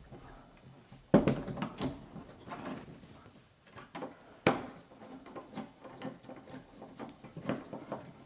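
Irregular clicks and knocks of door knob and latch hardware being handled and fitted into a door, with two sharper knocks about a second in and about four and a half seconds in.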